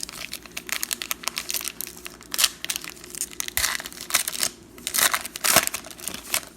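Trading card packs and cards being handled: irregular crinkling and rustling of plastic wrappers and sleeves, in many short crackles.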